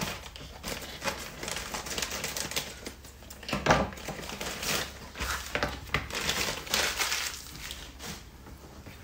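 Thin clear plastic bag crinkling and rustling as it is handled and opened, with irregular crackles; it is loudest about three and a half seconds in.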